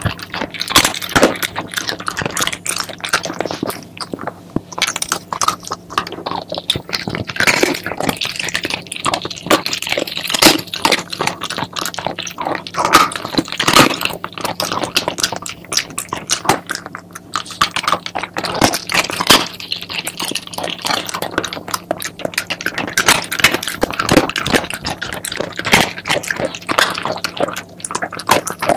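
A Shiba Inu crunching and chewing chicken feet close to the microphone: dense, irregular cracks and crunches of the bones, with no pause.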